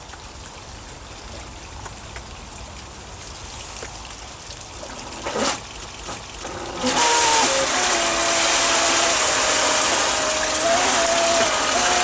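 Electric jet drive of a DIY jet surfboard starting up about seven seconds in: a sudden loud rush of pumped water jetting into a test tank, with a motor whine on top that shifts in pitch a few times. Before it there is only a faint water sound and a single knock about five seconds in.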